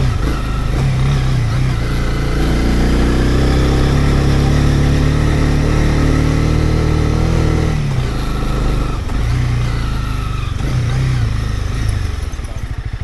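Honda CB300 motorcycle engine pulling under load on a steep climb, its note rising and falling with the throttle. It is fullest in the middle and eases off about eight seconds in.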